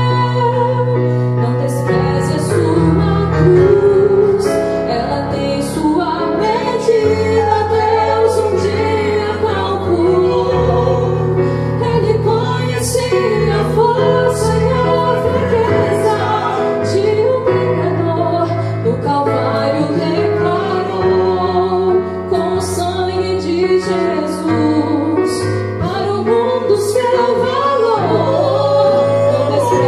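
A woman and a man singing a Portuguese-language gospel duet, accompanied by a Casio electronic keyboard playing held chords and bass notes that change every few seconds.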